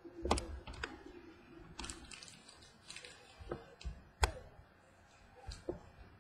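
Trading cards and hard plastic card holders being handled on a wooden table: scattered sharp clicks and taps, the loudest a little after four seconds in.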